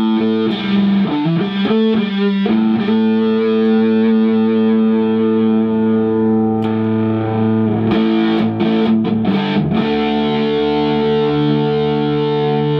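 Electric guitar, a Telecaster with a four-way-switch series-wiring mod, played through an amp with some drive. Chords are strummed and left to ring in the middle (parallel) pickup position. After a few quick strums about eight seconds in, it switches to the series position and a new chord rings out, the thicker, humbucker-like setting.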